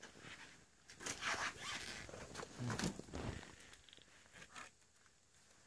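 Faint rustling and scraping from hands handling a roll of black stretch-film pallet wrap, in several short bursts over a couple of seconds.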